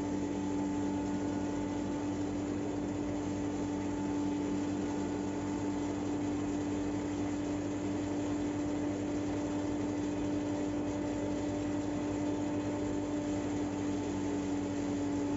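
Tractor-driven forage mill grinding dry alfalfa, with the tractor engine running it at a constant speed: a steady, unchanging mechanical hum.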